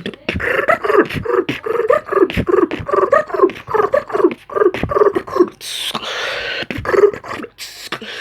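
Freestyle beatboxing by mouth: rapid percussive clicks and hits mixed with short pitched, growl-like vocal sounds, with a longer hissing sound about six seconds in.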